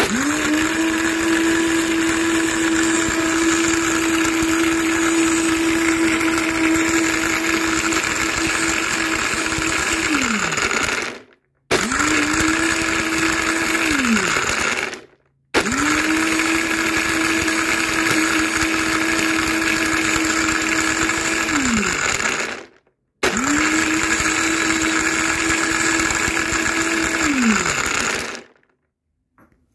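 Silver Crest high-speed countertop blender chopping whole pickled olives, pits and all, in water. It is run four times in a row, for about eleven, three, seven and five seconds: each run spins up quickly to a steady whine and winds down with a falling pitch when switched off.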